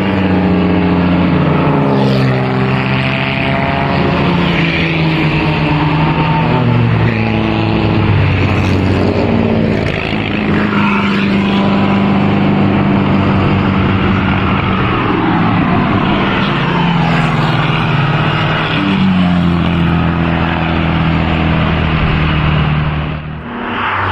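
Vintage pre-war racing and sports cars driving past one after another under power, their engines running hard with pitch rising, falling and stepping as each car accelerates and goes by. The sound dips briefly near the end.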